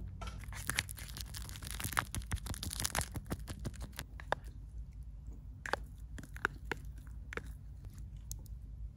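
Plastic natto cup packaging crinkling and tearing as the cups are opened, a dense run of crackles for the first few seconds. Then sparser clicks and scrapes as sticky natto is scraped from the cups into the pot with a wooden spatula.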